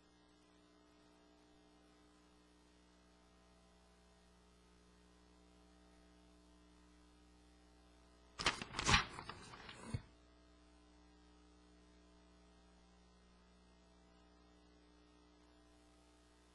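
Steady low electrical mains hum, broken about eight seconds in by a loud burst of noise lasting about a second and a half that ends in a sharp click.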